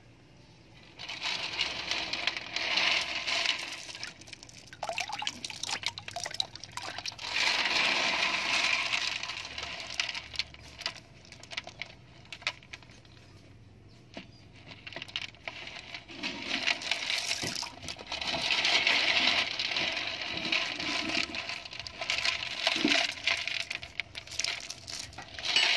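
Water sloshing and splashing in bouts as hands stir and scoop a basin of small river clams, with the shells clicking and clinking against each other.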